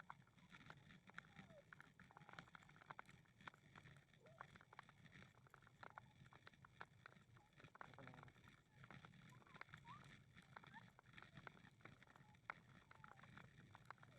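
Faint footsteps on a path: a run of light, irregular clicks over a quiet low background.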